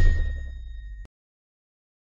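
Tail of a logo-reveal sound effect: a deep boom dying away under a high ringing tone, cut off abruptly about a second in.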